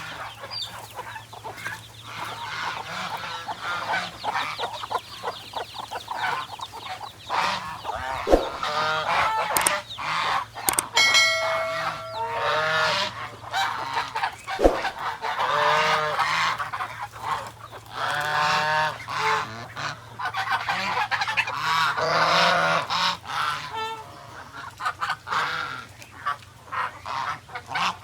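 Domestic geese honking, many overlapping calls with louder clusters of honks now and then.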